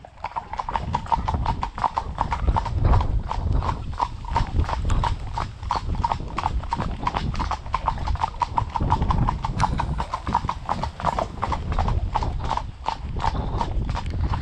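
Hooves of two Welsh Section D mares clip-clopping on a tarmac lane, in a quick, even rhythm of sharp strikes.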